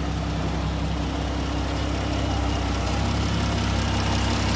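The 3.8 L V6 of a 2012 Chrysler Town & Country idling steadily.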